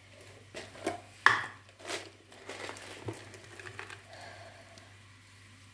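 Crinkling and sharp crackling as cardamom pods are handled and cracked to go into the halwa syrup: a cluster of about a dozen crackles and clicks, the loudest about a second in, dying away by about four seconds, over a faint steady low hum.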